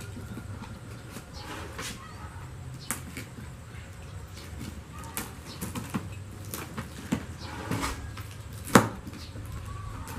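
A utility knife slicing through packing tape and cardboard on a box, heard as scattered scrapes and small crackles, with one sharp snap a little before the end.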